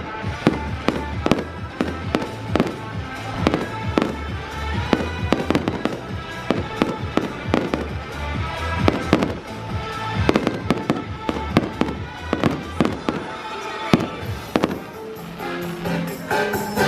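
A fireworks display: repeated sharp bangs and crackling bursts of fireworks over music. The bangs thin out near the end as the music takes over.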